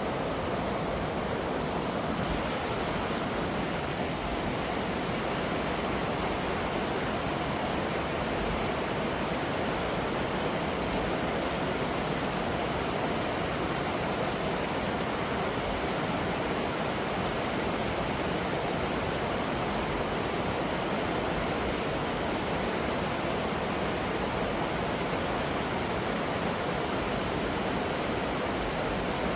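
Waterfall rushing steadily, an even noise with no breaks.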